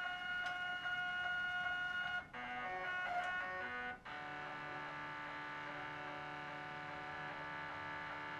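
Stepper motor driving the ball screw of a vertical model railroad traverser, a steady whine made of several tones. About two seconds in the pitch shifts in quick steps, then settles on a new steady whine from about four seconds in as the motor changes speed.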